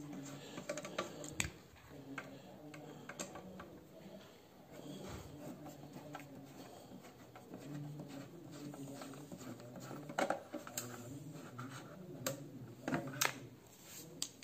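Scattered sharp clicks and light metallic knocks as a car radio's sheet-metal chassis is handled and its side screws are taken out, the loudest clicks about ten and thirteen seconds in.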